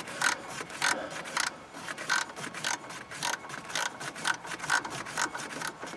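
A 1/4-inch socket ratchet clicking in short, uneven strokes, a few a second, as a valve mounting bolt is run in and has not yet snugged up.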